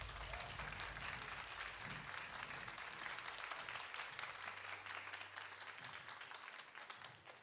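Audience applauding after a song ends: a dense patter of many hands clapping that slowly dies away toward the end.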